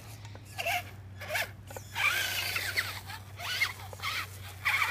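Electric motor and drivetrain of a radio-controlled truck revving in short bursts, about seven of them, each a brief whine that rises and falls in pitch, over a steady low hum.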